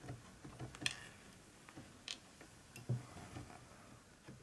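A few faint, scattered light clicks and ticks of small plastic model parts and tiny screws being picked up and handled on a table.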